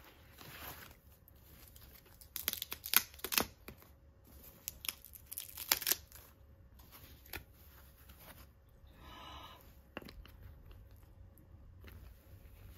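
Packing paper and a foam wrapping sheet crinkling and rustling as they are pulled off a handbag, with sharp crackles in a cluster a few seconds in and again around six seconds in, then quieter scattered rustles.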